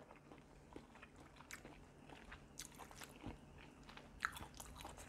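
Faint chewing of a mouthful of noodles and quail egg, with a few soft, scattered clicks.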